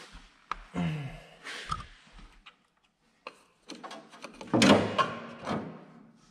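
Hands working small metal parts at an 8N Ford tractor's distributor while fitting a new condenser: scattered clicks and scrapes, with a louder clunk about four and a half seconds in.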